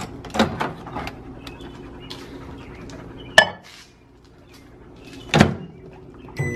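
Microwave oven door popped open with a sharp click, then shut with a knock about two seconds later. Near the end a keypad beep sounds and the oven starts running with a steady hum.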